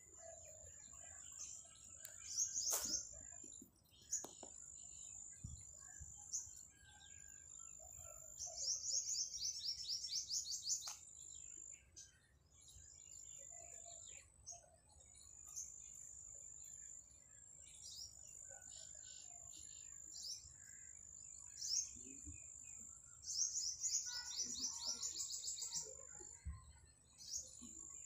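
Small birds chirping: a thin, high note held with short breaks, scattered short chirps, and rapid high trills three times, a few seconds apart.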